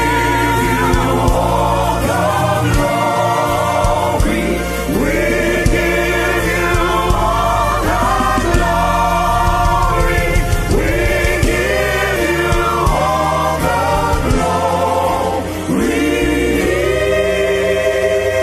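Gospel choir singing a worship song in several voices over steady instrumental accompaniment with a low bass line; about 16 seconds in the voices settle on a long held chord.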